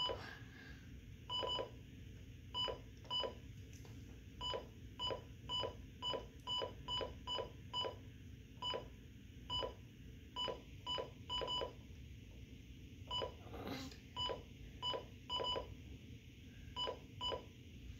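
Midland WR300 weather radio's key-press beeps: about thirty short beeps all at one pitch, one for each press of its arrow buttons, coming in irregular runs with a few short pauses while scrolling through the setup menu.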